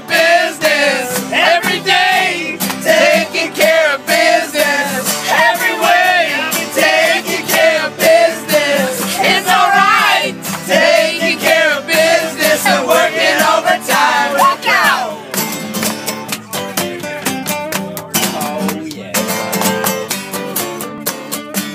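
People singing along to a strummed acoustic guitar. About fifteen seconds in the singing stops and the guitar strums on alone.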